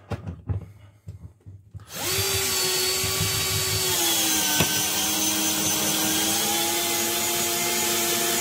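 Bosch GSB 120-LI 12 V cordless drill/driver driving a long screw into wood. After a few light handling clicks, the motor starts about two seconds in and runs steadily. Its whine drops slightly in pitch around the middle as it takes up load, with one sharp click, then rises again.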